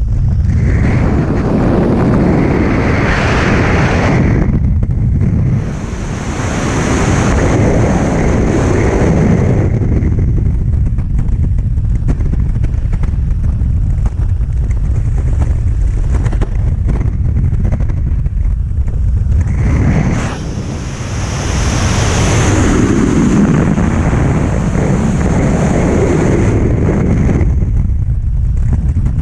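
Loud rushing wind of skydiving freefall buffeting the camera's microphone, swelling and easing several times.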